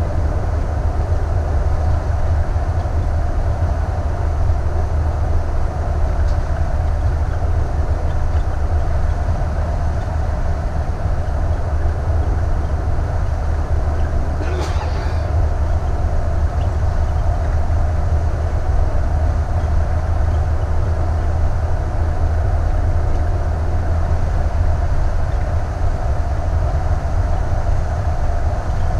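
Steady low drone of a Thor Vegas motorhome cruising at highway speed: engine and road noise. A brief sharp noise about halfway through.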